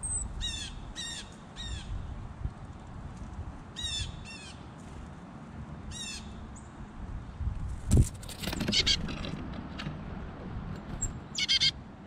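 Black-capped chickadees giving the harsh, buzzy "dee" notes of their chick-a-dee call, in short spaced runs. About two-thirds of the way through comes a loud thump, followed by a quick flurry of calls.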